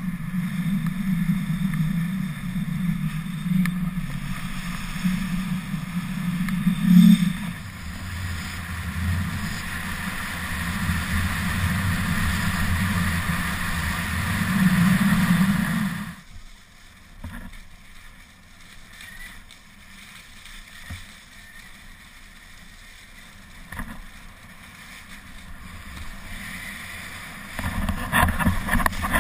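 Wind rushing over an action camera's microphone and skis hissing over packed snow during a downhill run. It is loud for about the first half, drops suddenly to a quieter rush about halfway, and grows loud again near the end.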